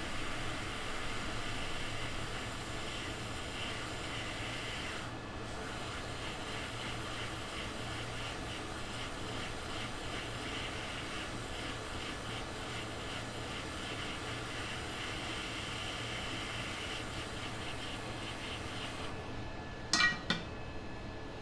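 A steady fan-like hiss of moving air with a low hum underneath, which stops shortly before the end, followed by two or three sharp clicks.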